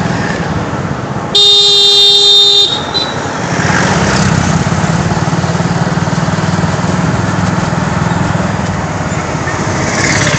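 Motorcycle riding along a street, its engine running steadily under traffic noise, with one loud horn blast lasting just over a second, about a second and a half in.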